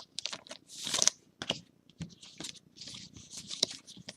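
Trading cards being handled and slid through a stack one after another: a quick run of short papery rustles and light clicks.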